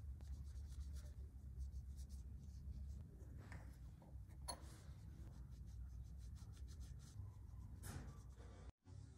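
A cloth rubbing and polishing small brass parts, faint and scratchy, with a couple of light clicks of the brass pieces on the wooden bench over a low steady hum. The sound cuts off near the end.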